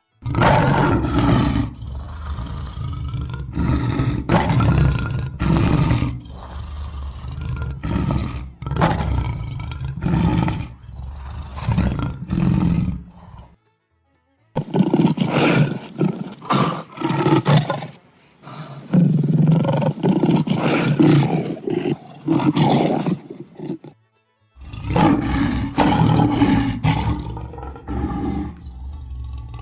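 African lions roaring: a run of repeated deep roars and grunts, one after another. Twice the sound cuts out abruptly for about a second before the roaring starts again.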